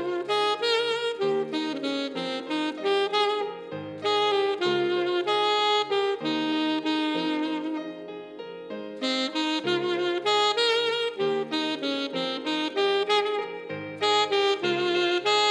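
Alto saxophone playing a pop-song melody, in phrases a few seconds long that restart about every five seconds.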